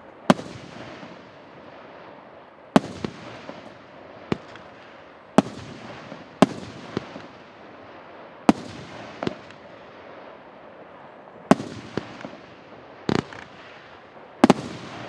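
A 28-shot, 1.8-inch consumer fireworks cake firing: about a dozen sharp bangs at irregular gaps of one to two and a half seconds, each trailing off into a fading hiss, with a quick double bang near the end.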